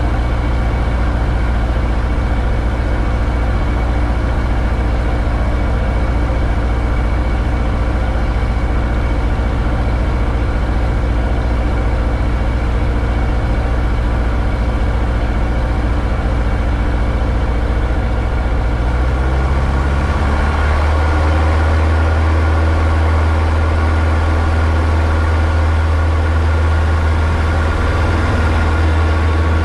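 Light aircraft's piston engine and propeller running at a low, steady idle, heard inside the cockpit. About two-thirds of the way through the engine speed picks up and settles at a slightly higher, steady rpm.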